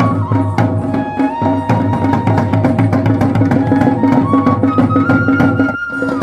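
Traditional folk music: a melody of held notes stepping up and down over a steady drone, with drum strokes keeping a regular beat. It breaks off for an instant near the end.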